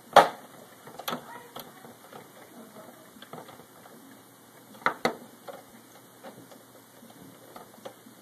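Sharp plastic clicks and knocks from Xbox 360 case parts being handled and fitted, as the eject key is put on; the loudest click comes just after the start, with another about a second in and a quick pair near five seconds.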